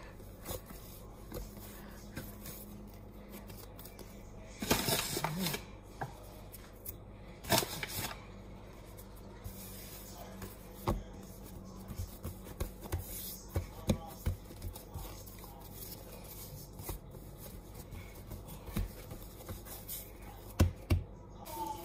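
Hands working a ball of bread dough on a countertop: scattered soft pats, light taps and knocks, with louder rustling bursts about five and seven and a half seconds in, and a couple of sharper knocks near the end.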